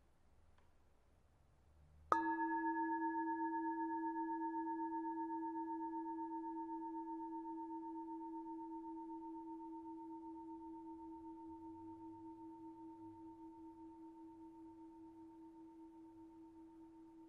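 A singing bowl struck once, about two seconds in, then ringing on in a few steady tones that fade slowly with a gentle pulsing. It is the bell that opens a period of quiet meditation.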